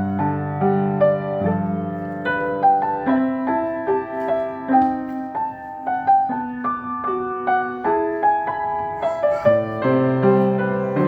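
Solo piano playing a gentle piece: a melody of single notes in the middle range, several a second, over held low bass notes.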